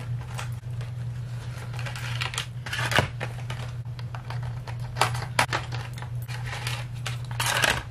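Makeup packaging being opened by hand: rustling and scraping with scattered sharp clicks as the lipstick and lip-gloss tubes are worked out of their box. A steady low hum runs underneath.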